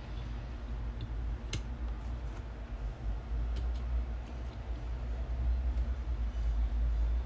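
Light clicks of small metal diecast model cars being picked up and set down on a tabletop, a few separate taps, the sharpest about a second and a half in, over a steady low background rumble.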